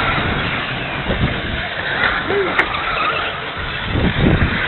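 Race cars running around a track during a race, a steady mix of motor and track noise with brief swells.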